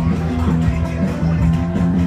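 Background music, with a bass line that changes note about twice a second under a steady beat.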